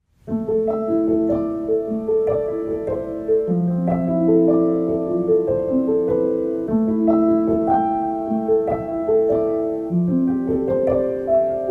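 Background piano music: a melody of struck notes that ring and fade, a few notes a second.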